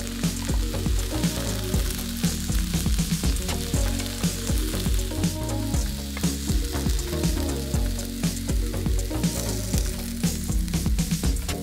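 Grilled vegetables sizzling on a hot electric contact grill, with many sharp clicks and taps as silicone-tipped tongs pick slices off the ribbed grill plate and set them on a plate.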